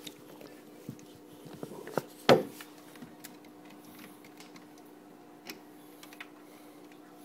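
Handling noise as plastic airline tubing and small plastic and glass bottles are moved about, with light clicks and rustles and one sharp knock about two seconds in. A faint steady hum runs underneath.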